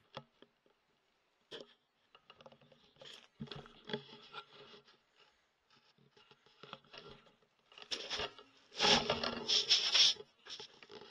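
Handling noise from a rifle and its scope: irregular scraping and rubbing sounds, with a louder cluster about nine to ten seconds in.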